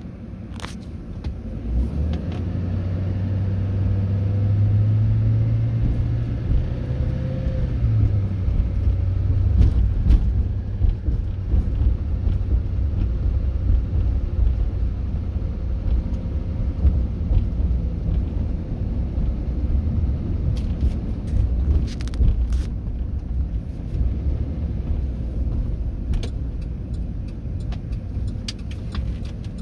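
Car engine and tyre rumble heard from inside the cabin as the car pulls away from a stop, the engine hum rising for several seconds and dropping back about eight seconds in, then steady driving rumble. A few light clicks are heard now and then.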